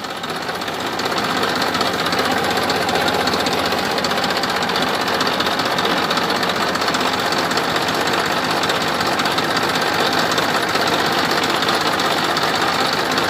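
Small motor running steadily with a fast, even rattling buzz, cutting off abruptly near the end.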